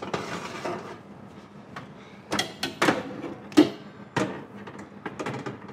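Wire oven shelf and metal cupcake trays clattering and scraping as they are slid in and out of an oven, with a string of sharp metal knocks from about two seconds in, the loudest a little past halfway.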